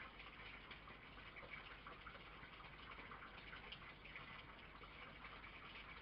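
Near silence: a steady faint hiss with soft irregular ticks.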